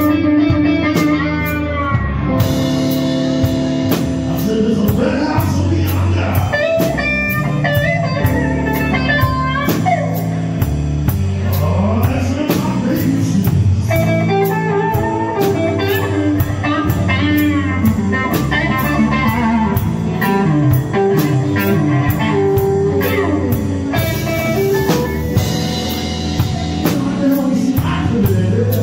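Live band playing a slow blues: electric guitar with bent notes over bass and a drum kit keeping time with steady cymbal ticks. Near the end, a brief cymbal wash.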